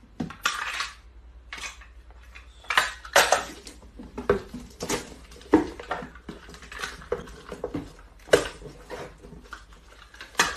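Packing tape pulled off a handheld tape dispenser and torn against its cutter, a series of short rasping strips, with cardboard boxes handled between them.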